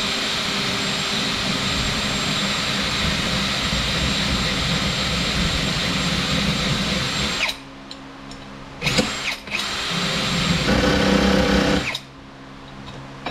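Cordless drill spinning a bolt while a tool is held against it to cut a slot in the bolt's end: a steady motor whine with grinding. It runs for about seven seconds, stops, gives a couple of short blips, then runs again for about two seconds and stops near the end.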